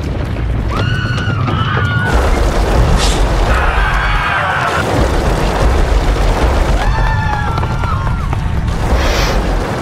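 Advertisement soundtrack: a heavy, continuous low rumble of a stampede under dramatic music, with people screaming three times as they flee.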